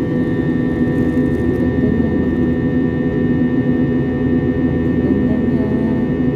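Jet airliner cabin noise in flight: a steady drone of engines and airflow with a constant hum, heard from inside the cabin.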